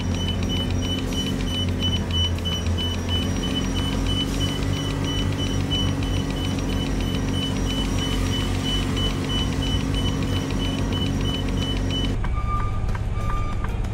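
Mercedes-Benz tractor unit's diesel engine running at low revs while reversing a container trailer, heard from inside the cab, with a high reverse warning beep repeating a few times a second. Near the end the beep changes to a lower, slower one.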